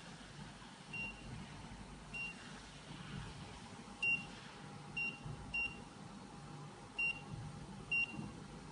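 Coordinate measuring machine taking points with its touch-trigger probe: a short high beep each time the stylus touches the part and a point is recorded, about eight at uneven intervals, some with a faint click. A low steady machine hum runs underneath.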